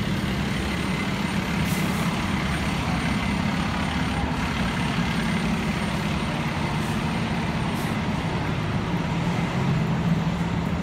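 Steady low rumble of heavy truck engines running, with street traffic noise.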